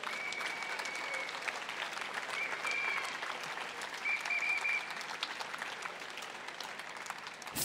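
Large crowd applauding steadily, with a few brief high tones over it.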